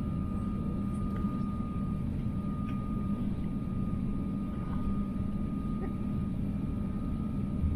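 Steady cabin noise inside an Airbus A350-900 on the ground: a low rumble and hum with a thin, even whine held over it.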